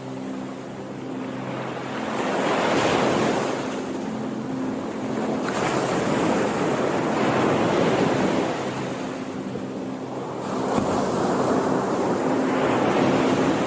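Sea waves breaking and washing in, rushing surf that swells and eases every few seconds, with a faint low steady drone underneath.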